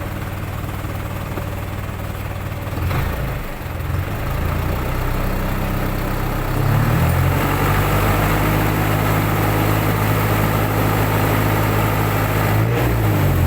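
An engine running steadily at idle, then rising in speed about seven seconds in, holding the higher speed for several seconds, and dropping back to idle near the end.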